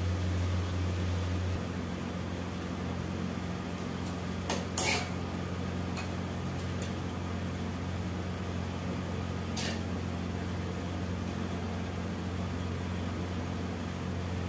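Steady low hum of a motor or appliance that drops a little after the first second and a half, with a few light clicks and knocks about four to five seconds in and a single click near ten seconds.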